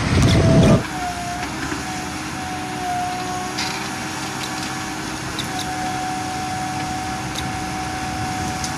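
A loaded tipper truck's diesel engine rumbling as it drives, cut off abruptly under a second in. Then heavy diesel machinery (a JCB 3DX backhoe loader and a tipper truck) running steadily, with a steady whine and a few light clicks.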